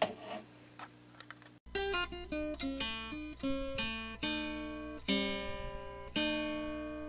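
Acoustic guitar music starting a second or two in: a quick run of plucked single notes, then chords struck about once a second and left to ring.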